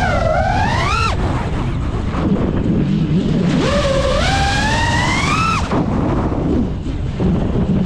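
5-inch FPV quadcopter's motors and propellers whining, the pitch climbing with throttle and dropping off sharply about a second in and again past the middle, over wind rushing on the onboard microphone.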